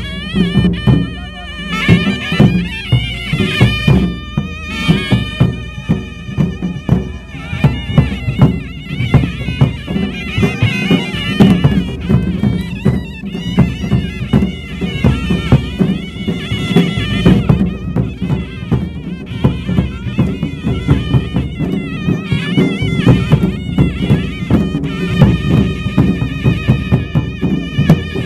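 Traditional Himachali folk music: a loud, nasal reed pipe plays a wavering melody over steady, rapid drumming.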